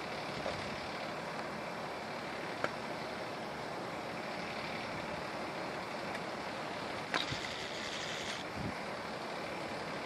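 Fire ladder truck's diesel engine idling steadily. About seven seconds in, a sharp click is followed by about a second of hiss.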